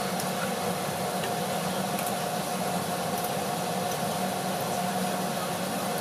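A steady mechanical hum with an even hiss over it, while chicken, potatoes and carrots cook in coconut milk in a wok on a gas stove.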